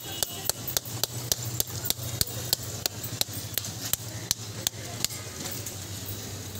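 Sharp repeated taps of a thin metal rod on the hard, woody shell of a wood apple (kodbel), about four a second, cracking the shell open. The tapping stops about five seconds in.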